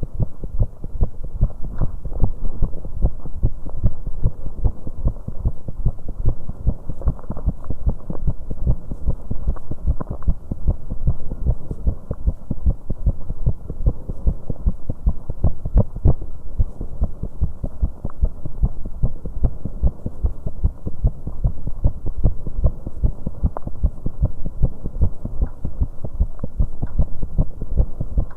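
A young woman's heart beating fast and hard after exercise on an exercise bike, a quick run of thumps recorded close against the chest. Her heart is prone to premature beats (extrasystoles), so the rhythm is irregular.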